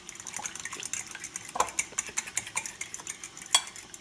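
A fork beating a raw egg in a ceramic bowl: rapid, uneven clinks of metal against the bowl's side, with two louder knocks, one about a second and a half in and one near the end.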